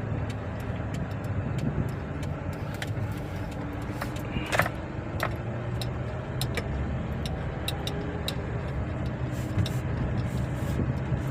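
Car engine and road noise heard from inside the cabin while driving, a steady low hum whose note rises slowly around the middle. The engine is pulling weakly under a misfire on cylinder 1, with scattered light clicks.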